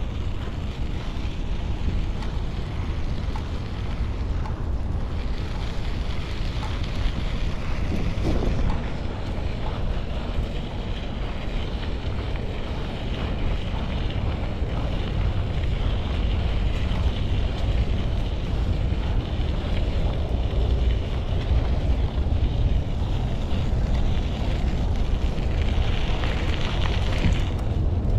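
Steady rumble of wind on the microphone, with a hiss that swells near the end.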